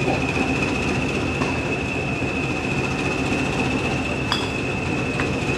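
English Electric Class 20 diesel locomotive's eight-cylinder engine running steadily, heard from an open window of the coach behind it, with a steady high turbocharger whistle over the deep engine note. A sharp click comes about four seconds in.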